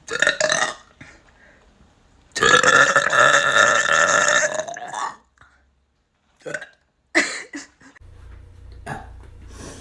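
A young woman burping: a short burp right at the start, then a long, drawn-out burp lasting about three seconds, followed by a couple of brief sounds a little after the middle.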